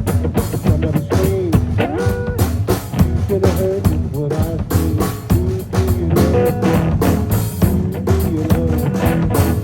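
Live band playing a blues-rock number: a guitar lead line with notes that bend up and down over a steady drum beat and bass.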